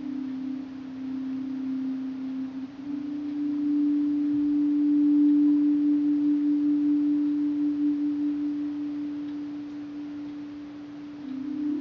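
Steady sustained pure-tone drone: one or two close pitches that beat slowly against each other and step slightly a few seconds in and again near the end, a meditation-style tone soundtrack.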